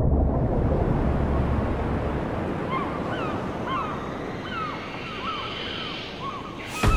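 Ocean surf washing steadily and easing a little, with repeated short falling bird calls joining about three seconds in. A sudden loud burst comes just before the end.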